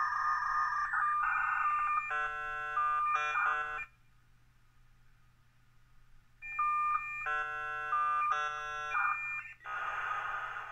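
A U.S. Robotics 56K Faxmodem's speaker playing the dial-up handshake. Steady tones give way to two bursts of chord-like stacked tones with about two and a half seconds of quiet between them. Near the end a steady hiss begins as the two modems train for the data connection.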